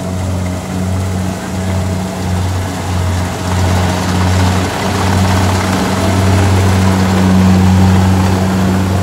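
Kubota rice combine harvester's diesel engine running under load as it cuts and threshes rice. A low hum that throbs about twice a second for the first few seconds, then holds steady and grows louder as the machine comes close.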